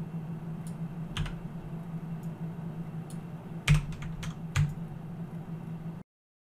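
Scattered clicks of a computer keyboard and mouse over a steady low hum, three of them louder than the rest. All sound stops abruptly shortly before the end.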